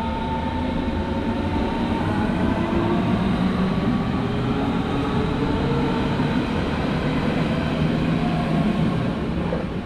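Berlin S-Bahn class 481 electric multiple unit passing close by as it pulls out of a station: wheels running on the rails under a whine of several steady tones from the electric drive. The sound drops away near the end as the last car goes by.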